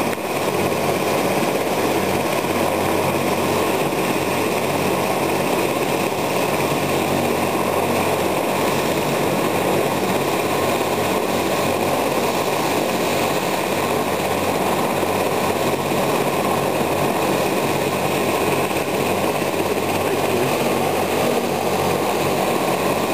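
Helicopter running steadily while it sits on the ground at a landing zone, a loud even rush of engine and rotor noise.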